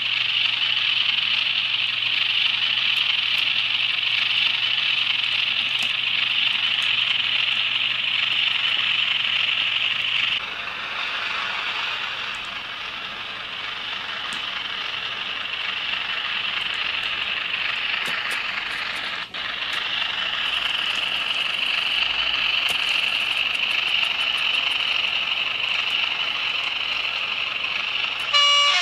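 ESU DCC sound decoder in an N gauge Graham Farish Class 37 model locomotive playing a Class 37 diesel engine sound through its small onboard speaker as the loco runs, steady, with an abrupt change about ten seconds in. A short horn blast sounds right at the end.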